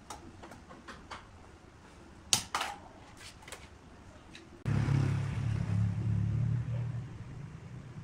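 A few light clicks and knocks, the sharpest a little past two seconds in. Then, about four and a half seconds in, a wood lathe's motor switches on and runs with a low, steady hum, turning a rough log mounted between centres.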